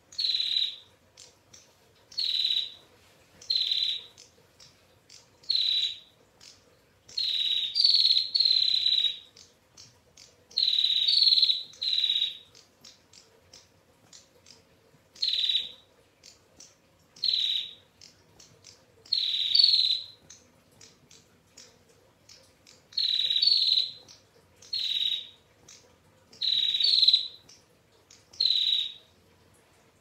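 Female prinia (prenjak) giving its trilled 'ngetir' call: short, high calls repeated every second or two, some in quick pairs.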